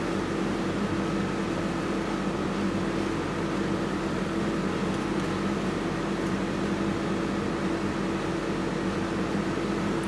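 Steady machine hum: a few steady low and mid-pitched tones over an even hiss, unchanging throughout.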